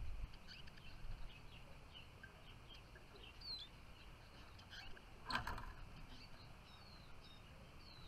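Small finches calling faintly: scattered short high chirps and a few falling whistled notes, with one louder burst about five seconds in.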